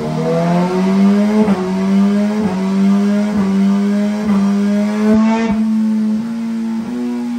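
BMW S1000RR's inline-four with a full Akrapovic race exhaust, held at high revs on a dyno, its pitch rising slightly and dipping back about once a second.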